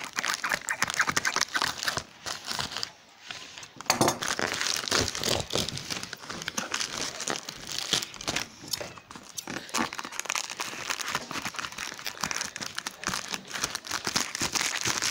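A plastic mailer bag crinkling and rustling in a continuous run of crackles as it is handled and opened, with a brief lull about three seconds in; near the end it is being cut with scissors.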